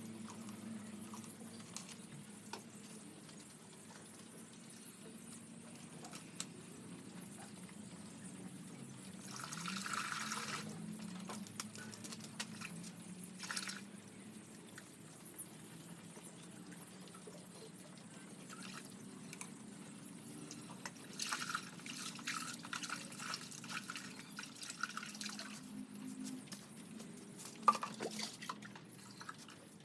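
Water pouring and dripping in two spells, a short one about ten seconds in and a longer, broken one a little after twenty seconds, over a low steady hum, with a sharp click near the end.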